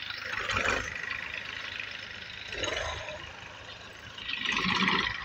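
Massey Ferguson tractor's diesel engine running, with a few brief louder swells over its steady sound.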